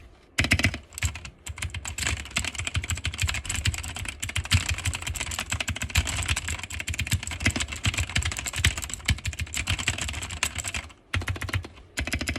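Fast typing on a TMKB mechanical keyboard with clicky blue switches, a dense run of sharp key clicks with a short pause near the end before the typing resumes.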